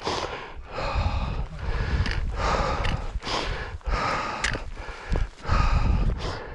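A hiker's heavy, rapid breathing close to the microphone, about eight hard breaths in a row, from the exertion of a long steep climb. Wind rumbles on the microphone underneath.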